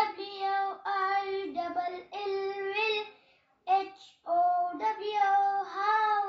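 A young boy reciting aloud from a book in a sing-song chant, holding each word on a steady note, in several short phrases with brief pauses between them.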